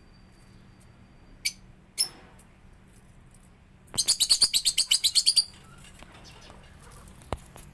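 A small bird chirping: two short chirps about a second and a half in, then a fast run of about fifteen chirps, around ten a second, near the middle.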